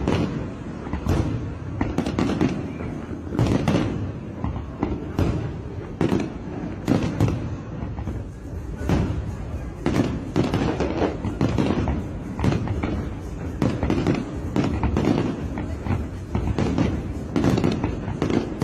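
Fireworks going off in a continuous string of sharp bangs and crackles, several a second with no pause.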